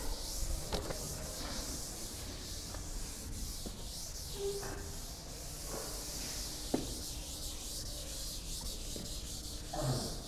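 Eraser rubbing across a chalkboard, wiping it clean: a steady rubbing with a few light knocks.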